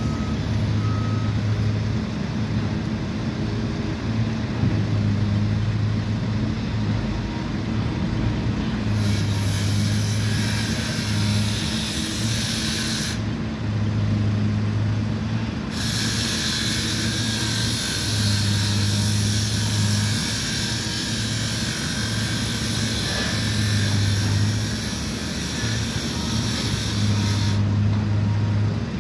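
Diesel engine of a long-reach demolition excavator running, its low note swelling every few seconds as the machine works under load. A steady hiss comes and goes through the middle, and faint reversing beeps sound near the start and end.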